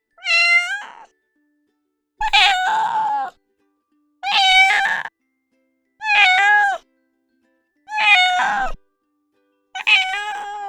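A cat meowing six times, each meow about a second long, spaced roughly two seconds apart with silence between.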